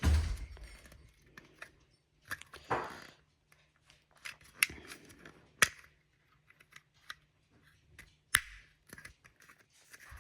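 Small plastic parts of a model hopper car kit being handled and pressed together: scattered clicks, ticks and short scraping rustles, with a knock right at the start, as a stubborn piece is worked into place.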